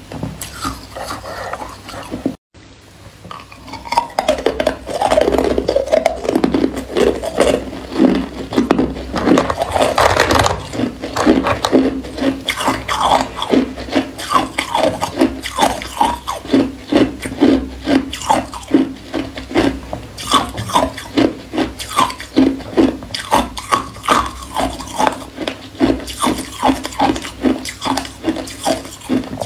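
Close-up crunching of hard, clear ice cubes being bitten and chewed, with steady crunches about twice a second. There is a brief break a couple of seconds in.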